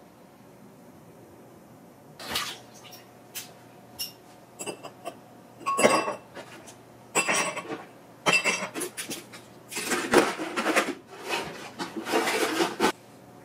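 Ice cubes dropped by hand into a stemmed glass, clinking against the glass and each other in a run of separate clinks and rattles.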